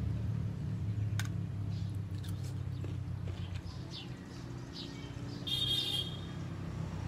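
Several short, high bird chirps and a brief trill over a steady low hum, with one sharp click about a second in.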